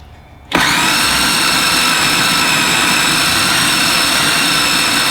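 Electric food processor switching on about half a second in and running steadily at full speed with a high motor whine, blending fried chillies, shallots and garlic into a paste.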